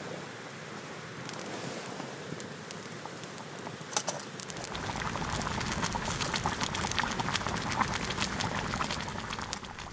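Wood campfire crackling, with sharp pops and snaps over a steady hiss; the crackling grows louder and busier about halfway through.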